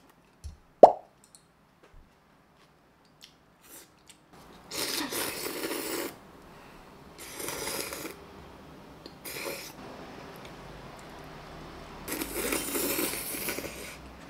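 Rice noodles from a bowl of beef pho being slurped in four drawn-in slurps, the last the longest. A sharp click, a utensil against the bowl, comes about a second in.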